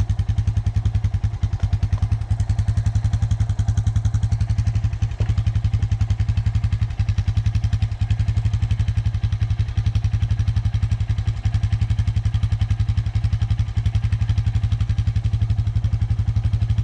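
Motorcycle engine idling steadily with an even, fast pulse. There are a few light knocks and clatters.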